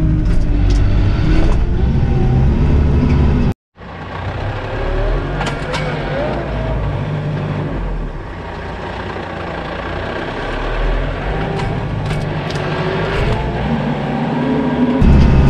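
Kioti RX7320 tractor's diesel engine running under load as it pulls a chisel plow through the ground. The sound drops out for a moment a little over three and a half seconds in, and the engine rumble is louder again near the end.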